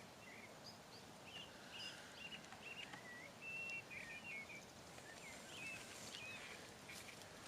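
Faint chirping of small birds: many short, quick calls over a soft steady hiss of outdoor background noise.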